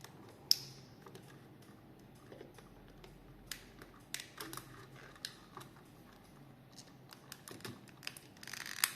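Scattered sharp plastic clicks and snaps as the clips of a quartz cuckoo-clock movement's plastic case are pried loose, the loudest about half a second in and several more close together near the end.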